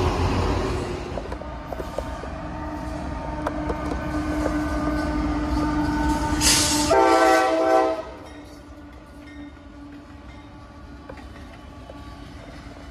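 Freight train rolling by: the wheel rumble fades in the first second, then wheels click over the rails under a steady hum. About seven seconds in, a short horn blast lasts about a second and cuts off sharply, leaving quieter rolling noise.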